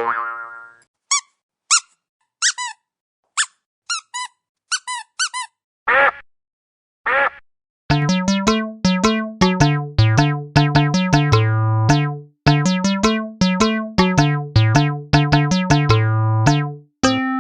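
Comic sound effects: a quick run of short, high squeaks, then two longer swooping tones, then from about eight seconds in a bouncy electronic keyboard tune with a bass line.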